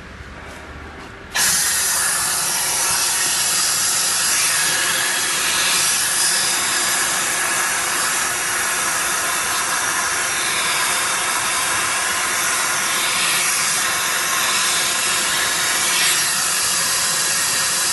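Dust recovery system of a pole welding machine switched on, its suction running with a loud, steady hiss as it draws up dust through the line at the torch. It starts abruptly about a second and a half in and stops right at the end.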